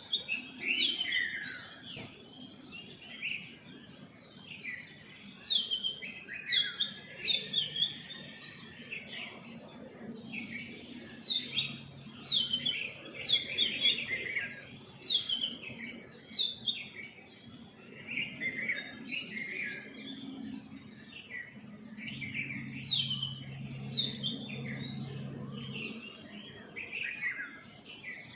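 A chorus of small birds chirping: many short, quick, downward-sliding chirps overlapping continuously. A faint low hum comes and goes underneath.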